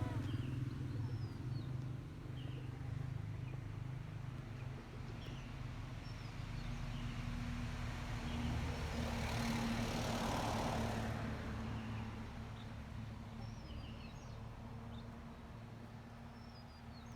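A vehicle engine running steadily at low pitch, with a louder swell of passing-vehicle noise about halfway through and small birds chirping now and then.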